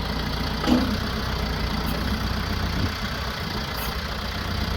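Branson F50 compact tractor's diesel engine idling steadily, with one short thump about a second in.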